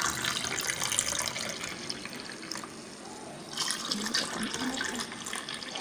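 Mint-ginger-lemon juice poured in a stream from a steel bowl into a glass of ice cubes, splashing as it fills. The pour thins briefly about three seconds in, then starts again into a second glass.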